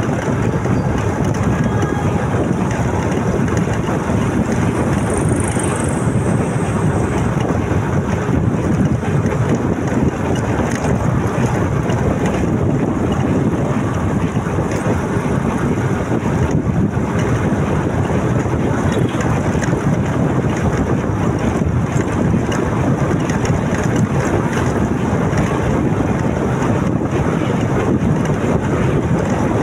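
Wind rushing over the microphone of a moving motorcycle, a steady, loud rush with the ride's road and engine noise blended in.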